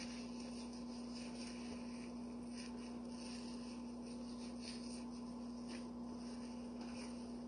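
A sponge wiping and rubbing in faint, irregular strokes over a steady low electrical hum.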